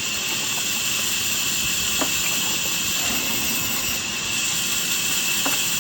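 Wood-cutting machine running steadily with a constant hiss, with a faint click about two seconds in and another near the end.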